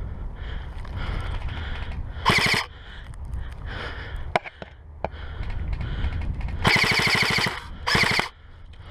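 Airsoft electric rifle firing full-auto bursts, a rapid rattle of shots: a short burst about two seconds in, then a longer burst near seven seconds followed at once by a brief one.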